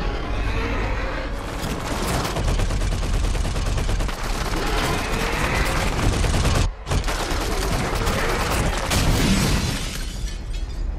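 Movie action soundtrack: rapid machine-gun fire over a heavy low rumble. It cuts out for a moment about two-thirds of the way in, resumes with crashing, and fades near the end.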